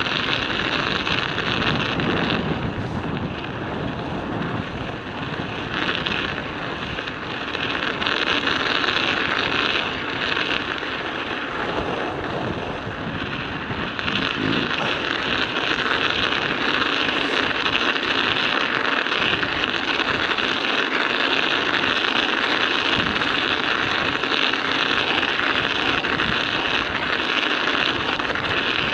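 Studded bicycle tyres rolling over ice and packed snow, a steady clatter and hiss of the metal studs on the road, with wind buffeting the microphone.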